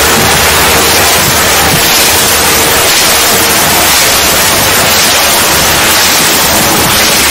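Loud, steady hiss of static-like white noise, with a faint steady tone under it that stops about three and a half seconds in.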